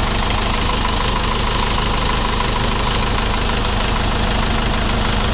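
An engine idling steadily, an even, unchanging drone.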